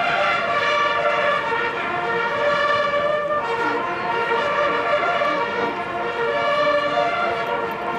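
Many brass hunting horns blown together in long, held chords, moving to new notes about three and a half seconds in.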